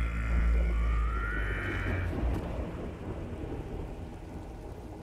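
Thunderstorm sound effect from a film trailer mix, heard from the Dolby Atmos overhead channels only: a deep rolling thunder rumble with rain hiss, loudest at first and fading over the last seconds. A high rising tone sounds about one to two seconds in.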